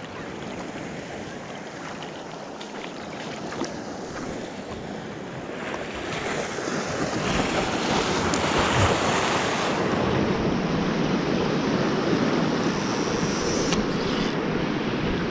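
Small sea waves washing and splashing over shoreline rocks, with wind on the microphone; the wash grows louder about halfway through.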